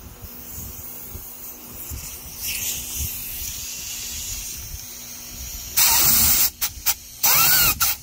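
Compressed-air blow gun hissing in bursts: a long blast about six seconds in, two short puffs, then another blast near the end. The air is blown under a rubber handlebar grip to inflate it so it slides on the bar.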